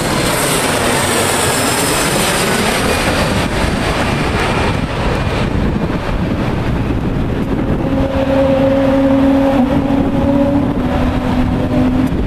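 Embraer E175's twin turbofan jet engines passing low overhead on final approach: loud jet noise with a high whine and a falling pitch as the airliner goes over and draws away. From about eight seconds in, a steady low hum joins the fading jet noise.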